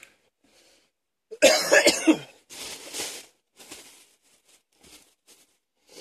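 A man with mild asthma coughing: a loud fit of several quick harsh coughs about a second and a half in. It is followed by a longer, quieter breathy cough and a few short, soft breaths.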